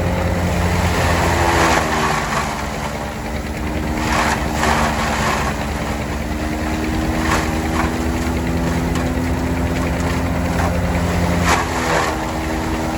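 Engine running steadily at a low speed, its pitch shifting slightly a couple of times, with a few short louder bursts of noise.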